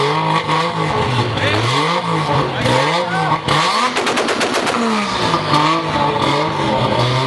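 Toyota Supra engine being revved up and down again and again, with a rapid string of exhaust pops and crackles in the middle, the kind of backfire that comes with flames spitting from the exhaust.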